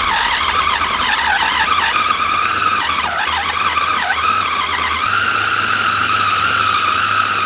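Mitochiba electric food chopper running, mincing raw meat, its motor whining steadily. The pitch wavers and dips briefly twice near the middle, then holds level.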